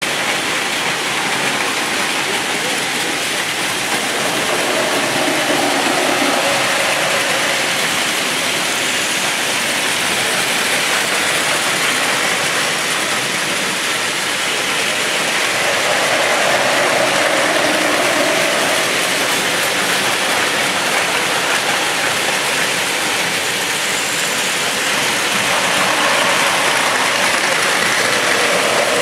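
Several battery-powered Plarail toy Shinkansen trains running together on plastic track: a steady, dense mechanical noise, with a mid-pitched hum that swells and fades a few times as trains come close and move away.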